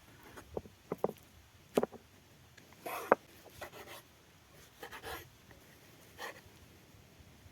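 Irregular light taps and clicks, then a few short scraping or rubbing strokes.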